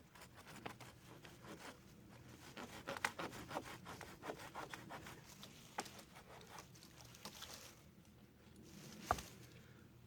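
Wood being scraped and rubbed in a quick, irregular run of short strokes, with one sharp crack about nine seconds in.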